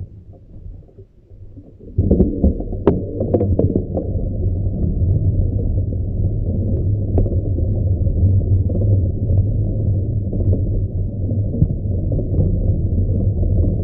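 Riding noise from a bicycle descent: a steady low rumble of wind and road noise on a muffled microphone. It comes in suddenly about two seconds in, with a few knocks in the next couple of seconds.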